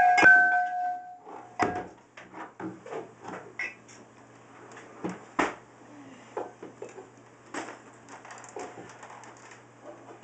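Soft-sided fabric suitcase being pushed open from inside by a child who then climbs out: irregular rustling, scraping and soft knocks of the lid and fabric shifting. A short held pitched sound in the first second.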